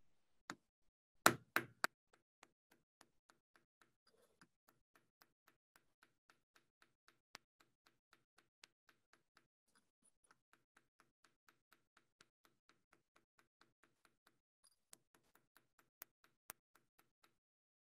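Hammerstone striking a copper bar held on a stone anvil, cold hammering the metal at room temperature to thin it. A few harder knocks come in the first two seconds, then steady light taps follow at about three a second.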